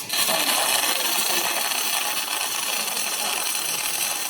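Robotic welding arc striking suddenly, then burning with a loud, steady hiss.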